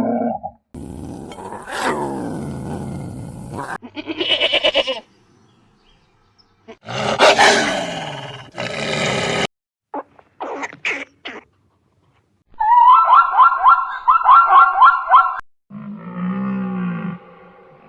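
A series of different animal calls, one after another with short gaps. Among them are a long harsh call with falling pitch, several short loud cries, a run of quick high repeated notes, and a low call that rises and falls in pitch near the end.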